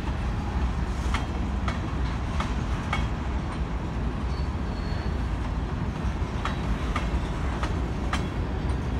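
Freight train's covered hopper cars rolling past with a steady low rumble, and the wheels clacking over the track joints in groups of a few clacks. A faint brief high squeal comes near the middle.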